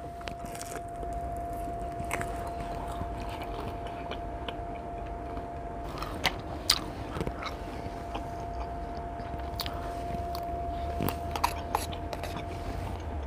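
A person chewing and biting food close to the microphone, with scattered sharp clicks and crunches, over a steady faint hum.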